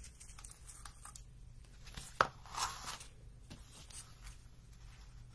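Soft rustling and handling noises from craft materials, a roll of ribbon and a clear plastic ornament, being handled on a tabletop, with one sharp click a little over two seconds in.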